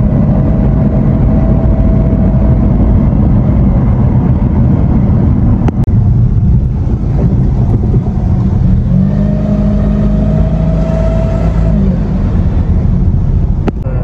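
Car being driven, heard from inside the cabin: a steady low rumble of engine and road noise. The engine note steps up about nine seconds in and falls back near twelve seconds. There are two short clicks, one midway and one near the end.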